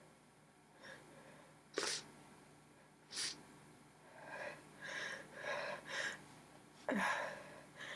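A woman sneezing repeatedly in a helpless sneezing fit: sharp sneezes about two seconds in and again about three seconds in, a run of short catching breaths, then a louder sneeze about seven seconds in.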